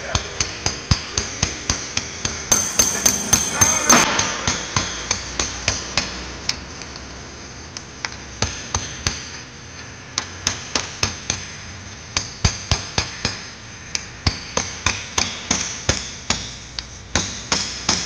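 Hammer blows on metal, a fast steady run of about three strikes a second with a bright ring to each, broken by two short pauses. A brief rushing noise rises over the strikes about three seconds in.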